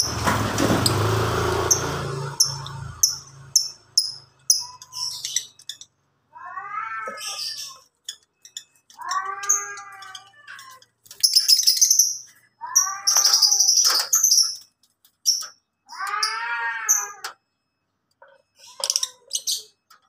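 Lovebirds chirping and screeching in short, sharp, high-pitched bursts, while four drawn-out, rising-and-falling meow-like calls sound about three seconds apart. A low rumble fades out in the first few seconds.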